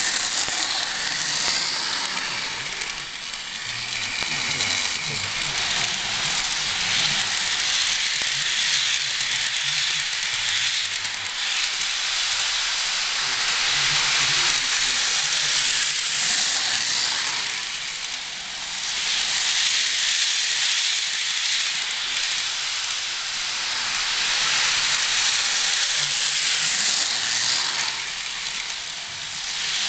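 Model electric passenger train running on its track loop: a steady rushing rattle of wheels on the rails and motor whir, which fades a little and swells again a few times as the train moves away and comes back past.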